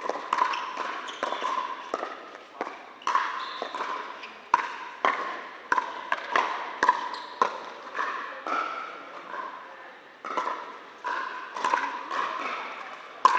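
Pickleball paddles striking a hard plastic ball again and again in rallies, sharp ringing pocks about one or two a second, echoing in a large indoor hall.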